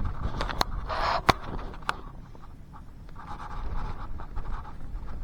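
Wind rumbling on the microphone, with a few sharp clicks and short scraping rustles from handling the cooking gear.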